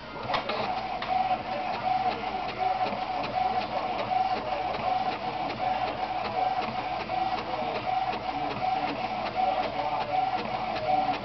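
Printer running a copy job: its motor sounds a pitched pulse about three times a second, with small mechanical clicks throughout.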